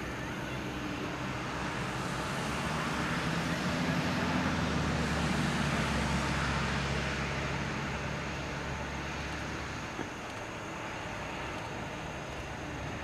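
Boeing 747-400 freighter taxiing past on its four jet engines at low taxi thrust: a steady engine noise with a low hum, swelling to its loudest midway as the jet passes and then easing off.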